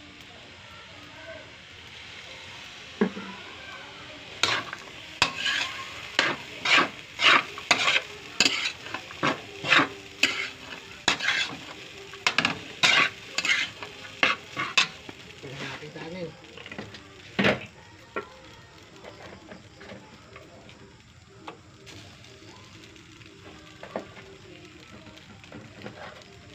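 A metal spatula scraping and clanking against a metal wok as fried rice is stirred and tossed. The strokes come in a quick run of about one or two a second, with one last stroke a couple of seconds later. A faint frying sizzle sits underneath.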